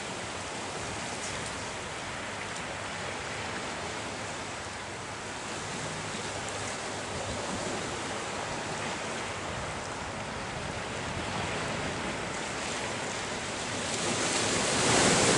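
Steady wash of small waves along the shore, swelling louder near the end.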